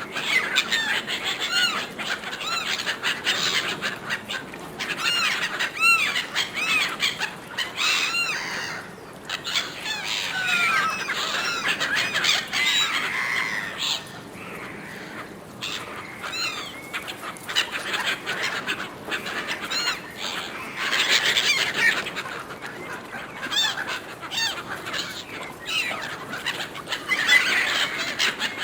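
A flock of gulls calling over one another in a dense chorus of short, arched squawks and cries while they compete for thrown food.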